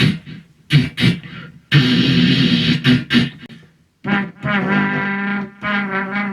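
Mouth-made sound effects: a few sharp percussive clicks, a second and a half of hissing rush, then a brassy, trumpet-like fanfare tone held and repeated in short notes.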